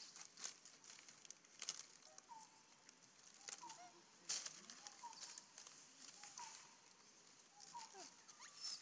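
Faint crackling rustles of dry leaves and twigs as a baby macaque handles them, in scattered sharp snaps. Behind them, faint short calls repeat about once a second.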